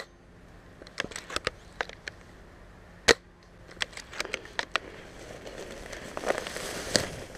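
Bolt-action spring airsoft sniper rifle firing with a sharp crack at the start and again about three seconds in, with a scatter of lighter clicks between the shots. From about five seconds on, dry grass and brush rustle as the shooter moves.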